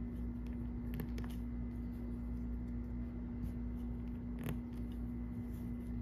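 Small plastic Petit Block bricks clicking as they are handled and pressed onto a baseplate: a few sharp clicks about a second in and again after four seconds, over a steady low hum.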